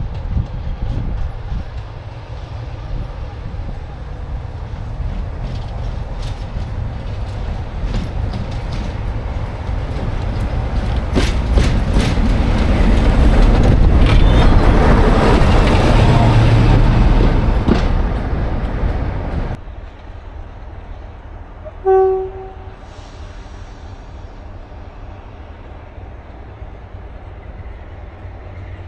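A diesel train passes at close range, its engine and wheels rising to a peak with a string of sharp clicks over the rail joints, then cutting off abruptly to a lower steady engine noise. A few seconds later there is one short horn toot.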